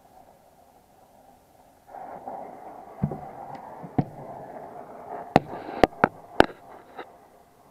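Brazing torch flame hissing steadily at a copper joint, much louder from about two seconds in. Several sharp taps and clicks come in the second half.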